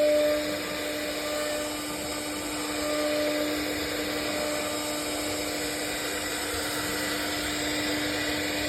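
CNC router spindle running steadily with an unbroken whine while its bit cuts mango wood, over a continuous hiss of cutting.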